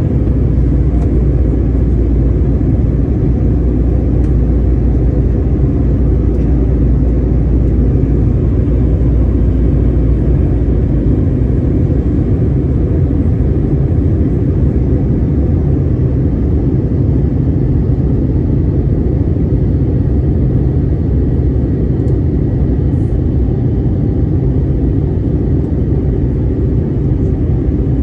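Steady low rumble inside a jet airliner's cabin during descent: turbofan engine and airflow noise heard from a window seat beside the wing-mounted engine. The deepest part of the rumble eases slightly about eleven seconds in.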